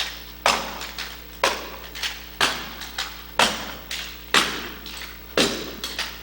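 Military rifle drill team handling rifles in unison, giving sharp knocks and clacks: a loud one about once a second with lighter ones in between, each echoing in the hall.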